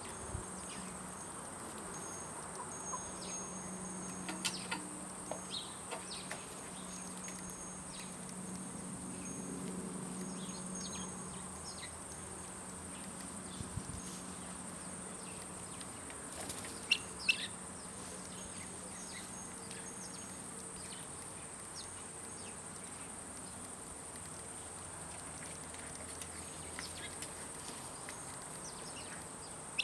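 Steady high-pitched drone of insects, with scattered short chirps and clicks over it, the two sharpest about 17 seconds in. A faint low hum underneath fades out a little past the middle.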